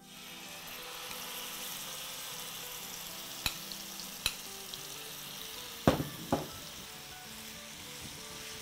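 Marinated chicken sizzling as it lands in hot oil in a nonstick frying pan, a steady hiss that starts at once. A few sharp clicks and two louder clinks from the tongs against the pan and glass bowl partway through.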